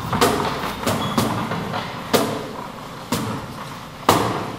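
A steady beat of heavy thumps, about one a second, five in all, each echoing in the large hall.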